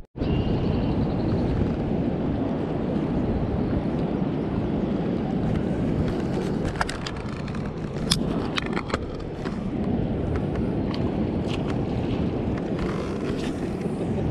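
Steady low rushing noise of wind and moving river water, with a few sharp clicks about halfway through.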